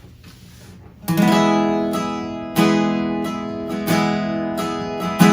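Acoustic guitar strumming the chords of a song intro. It comes in about a second in after a short quiet, with a strong strum roughly every second and a half and lighter strokes in between.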